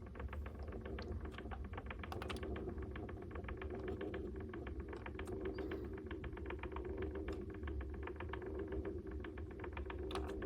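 Rapid light clicking, several clicks a second, over a steady low hum.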